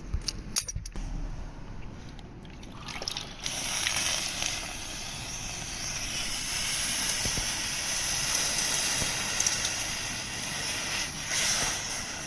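Water rushing through a newly soldered copper pipe joint as the line is flushed, a steady hiss that starts about three seconds in after a few clicks and stops near the end.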